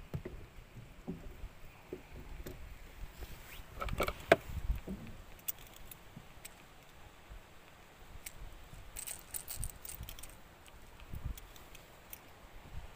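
Scattered light clicks, rattles and knocks of fishing tackle being handled in a small fibreglass boat, with the loudest knocks about four seconds in and a quick run of sharp metallic clicks around nine seconds.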